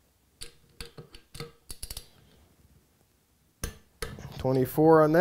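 Light metal clicks and clinks of a click-type torque wrench and its socket being handled and fitted onto a connecting-rod bolt on a crankshaft: a quick run of about six in the first two seconds, then one sharp click. A man starts talking near the end.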